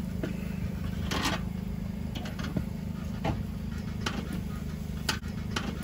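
Metal grill tongs clicking and scraping on a charcoal kettle grill's cooking grate as racks of pork ribs are turned over, a few sharp clicks spread out over a steady low hum.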